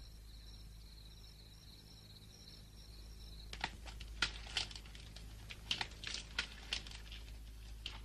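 Faint cartoon soundtrack ambience: a steady high chirring with a faint repeating pulse, like night insects. From about three and a half seconds in, a scatter of irregular light clicks and rustles joins it.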